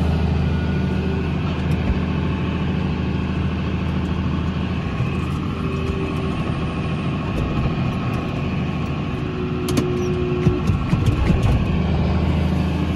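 John Deere 7430 tractor's six-cylinder diesel engine running steadily, heard from inside the cab, as the front loader lifts and tips a bucket of chicken litter into the spreader. A scatter of sharp clicks and knocks comes about ten seconds in.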